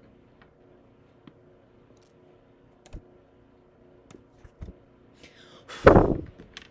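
A few faint small clicks over quiet room tone, then a loud, brief whoosh close to the microphone about six seconds in, falling in pitch.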